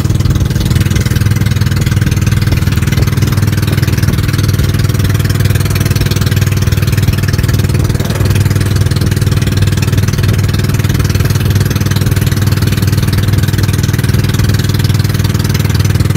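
Small boat's engine running steadily while under way, a constant loud low drone.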